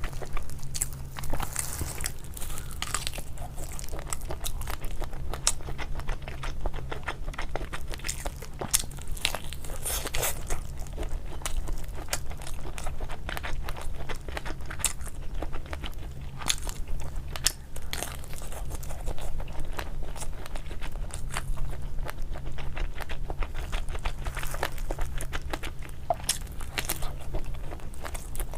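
Close-up eating: a person biting and chewing crunchy food, with irregular sharp crunches over a low steady hum.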